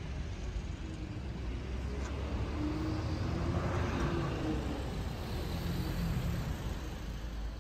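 Street traffic: a steady low rumble of road and wind noise, with a vehicle passing and swelling loudest about halfway through.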